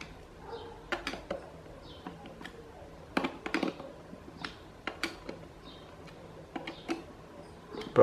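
Phillips screwdriver tightening the screws on a Mondial Maxi Power fan's plastic motor cover: scattered small clicks and taps, about a dozen at irregular intervals.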